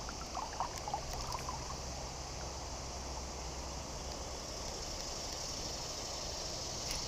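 River ambience: a steady high insect chirring over the murmur of moving water, with a few short faint chirps about a second in.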